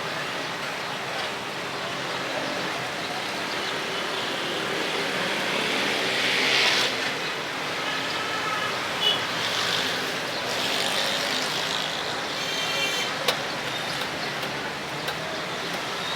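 Steady street traffic noise of passing vehicles, with a few sharp clicks and short pitched sounds over it.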